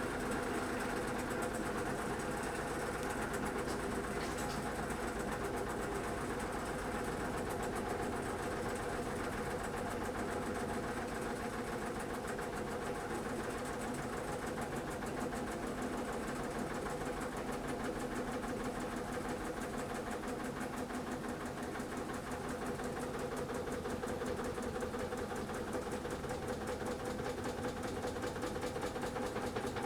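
Washing machine in its spin cycle, running with a steady hum and a fast, even rattling knock: the abnormal noise it makes only when spinning.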